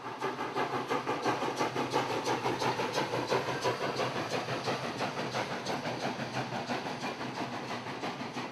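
Steam locomotive working, its exhaust beating in a quick, regular rhythm with a steady hiss of steam.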